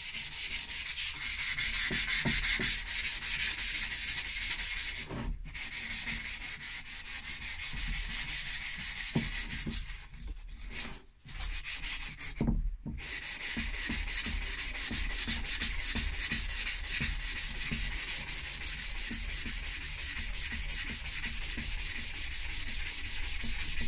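600-grit wet-and-dry sandpaper rubbed back and forth by hand over a steel axe head: a steady, scratchy, high-pitched rasping hiss that stops briefly a few times.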